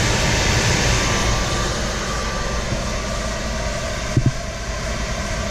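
Electric centrifugal blower running steadily, with a loud, even rush of air as it draws cabin air through its intake. A brief double knock comes about four seconds in.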